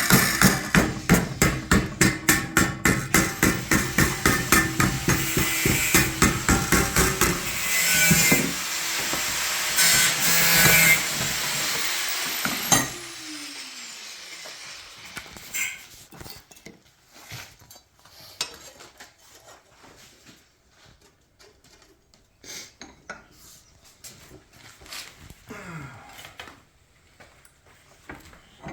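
Power tool cutting sheet metal for a patch panel, a fast pulsing rasp over a steady motor hum, which stops about thirteen seconds in and winds down in falling pitch. After that come lighter scattered knocks and clatter of metal being handled.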